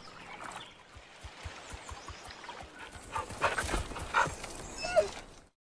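A dog whimpering, with a few short whines between about three and a half and five seconds in, over a faint steady hiss.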